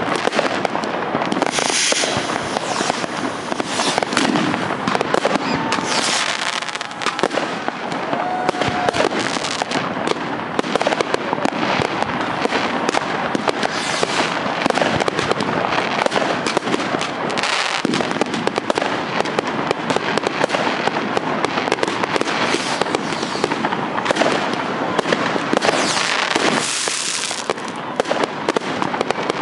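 Dense barrage of fireworks going off all at once: countless bangs and crackles overlapping into a steady, unbroken din.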